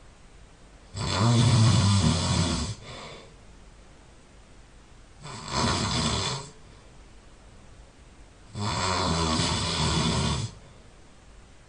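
A person snoring loudly and heavily in deep sleep: three long snores about four seconds apart, each a buzzing rattle lasting one to two seconds, with quieter breathing in between.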